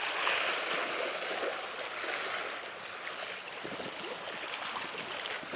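Small sea waves washing against the rocks at the water's edge, a steady hiss of water.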